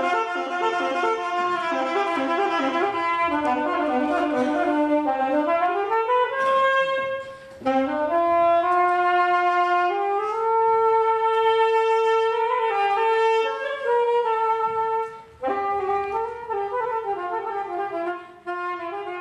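Music: a slow melody played on a wind instrument, sliding upward in pitch twice partway through.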